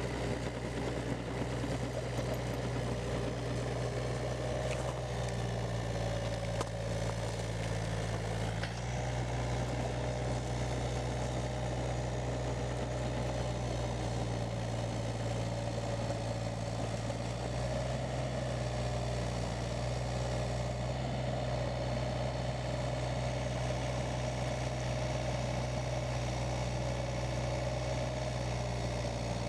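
Case CX36B mini excavator's 28 hp Yanmar diesel engine idling steadily, with a steady higher whine over the low engine note.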